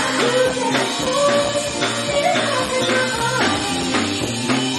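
Live band music with a woman singing into a microphone, holding long notes over an electric guitar and a beat of percussive hits.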